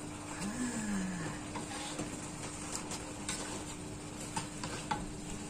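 A metal spatula stirring and turning fish in thick sauce in a steel wok, with a few sharp clicks and scrapes of the spatula against the pan over a steady low hum.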